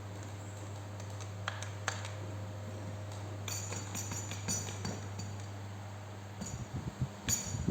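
Light clicks and clinks of small parts and tools being handled during a power-tool repair, over a steady low hum. Near the end the hum stops, and a few low thumps and one sharper click follow.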